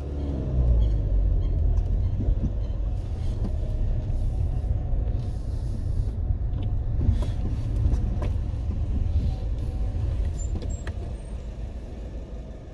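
Citroën car's engine and tyre rumble heard from inside the cabin as the car drives slowly forward, the low rumble easing and dying down near the end.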